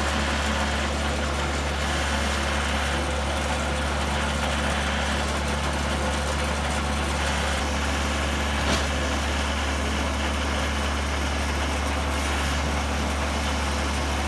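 A machine runs with a steady, unchanging low hum, like an idling engine or motor. There is a faint click about nine seconds in.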